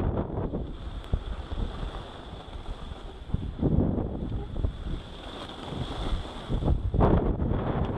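Wind buffeting the microphone of a camera carried by a skier heading downhill: an uneven low rushing rumble that surges louder about halfway through and again about a second before the end.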